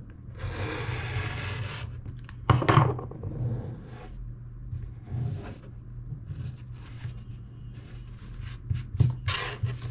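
Fabric being cut in one long stroke of about a second and a half near the start, trimming an over-long quilt block. A loud knock follows, then lighter knocks and rustling as the fabric is handled on the work surface.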